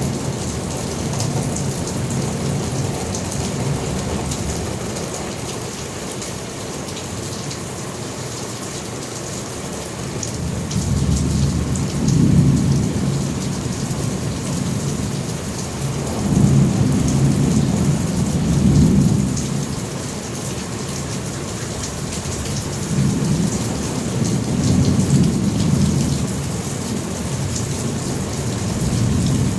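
Thunderstorm: steady rain hissing throughout, with deep rolling thunder rumbles that swell and die away several times. The rumbles are strongest about a third of the way in, again just past halfway, and once more near the end.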